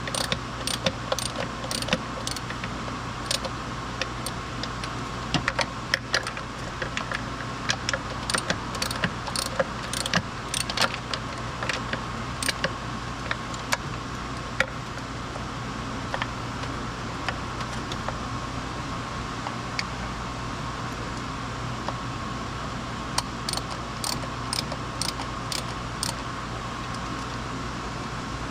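Scattered sharp metallic clicks and clinks of hand tools and small parts being handled during reassembly work on a car engine, over a steady hum. The clicks come in irregular clusters.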